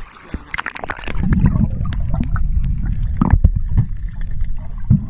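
Water heard through a microphone under water: scattered clicks at first, then from about a second in a steady muffled low rumble with occasional knocks.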